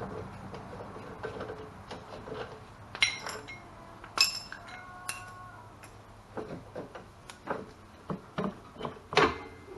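Metal tools and parts clinking and knocking while a golf cart's rear brake hub is worked on. One strike about five seconds in rings on briefly, and a quicker run of knocks comes near the end.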